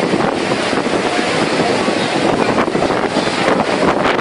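Storm wind and heavy rain: a loud, steady rush of noise, with wind buffeting the microphone.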